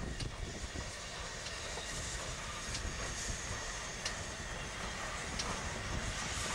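GWR 4-6-0 steam locomotive and its train running slowly past, a low rumble with a sharp click about every second and a half.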